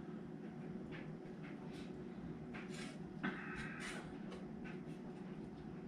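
Light clinks and a brief scrape of a cooking utensil against a cast-iron pot as braised short ribs are lifted out, over a steady low hum.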